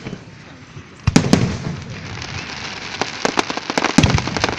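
Aerial firework shells bursting: two sharp bangs about a second in, then a dense crackle of many small reports, with another loud bang near the end.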